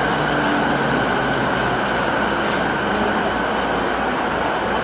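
Mitsubishi IGBT-VVVF inverter E217 series electric train running: a steady train rumble with faint tones and a few short high clicks.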